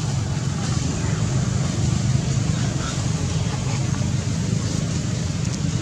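Steady low rumbling background noise, with a few faint, brief high-pitched chirps over it.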